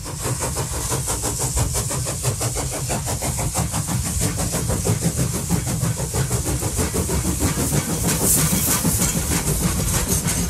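Engine of a full-size locomotive running on a recorded soundtrack: a steady low rumble with a fast, even beat and hiss above it, building up over the first second.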